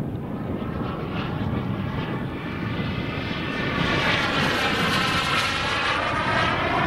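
The Jetsmunt M210 turbine of a 1/5-scale Dassault Rafale model jet in flight: a steady jet roar that gets louder about halfway through as the model passes. Over it, a phasing whoosh sweeps up and then down in pitch.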